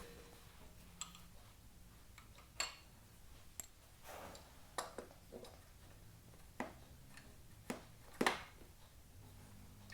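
Scattered light clinks and taps of small metal parts and tools being handled, about ten in all, the loudest near the end.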